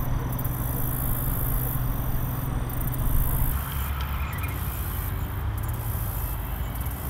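Steady low rumble of distant road traffic. Its pitch shifts a little past halfway.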